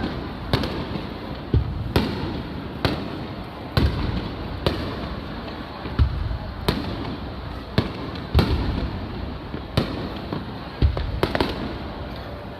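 Aerial fireworks shells bursting in quick succession: sharp bangs roughly once a second, several of them deep booms, with crackle and rumble filling the gaps.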